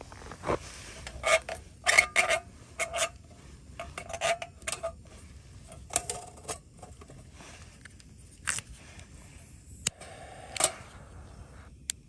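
Metal camp cookware and utensils clinking and scraping, a string of light knocks with a short metallic ring, the loudest cluster about two seconds in.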